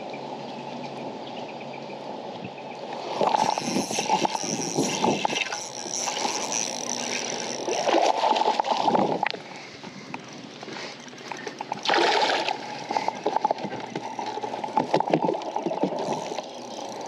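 A hooked bass splashing and thrashing at the surface beside the boat as it is fought in, in irregular loud bursts that begin about three seconds in.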